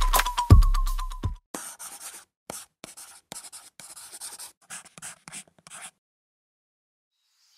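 Electronic music with a heavy beat and deep bass, cutting off about a second and a half in. Then a marker pen scratching out letters on a surface in short, irregular strokes for about four seconds.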